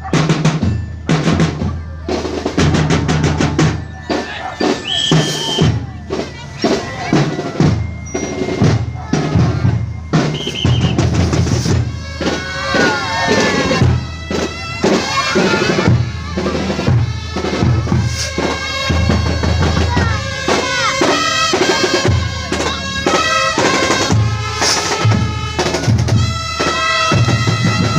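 A street band playing: bass drum and snare drum beat a steady march, and wind instruments come in with a melody about twelve seconds in.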